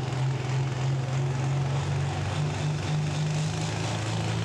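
Pulling tractor's turbocharged diesel engine running hard under load as it drags the weight-transfer sled, its pitch stepping up a little about halfway through.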